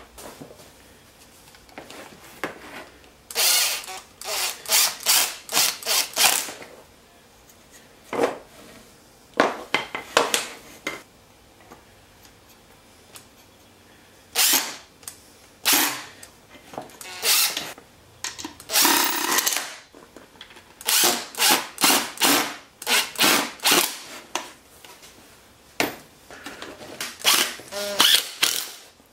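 Power drill run in many short bursts, each a fraction of a second long, in clusters of several with pauses between.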